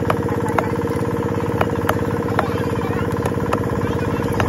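Curved cleaver chopping fish on a wooden log block: a series of sharp knocks, roughly every half second, over the steady hum of an idling engine.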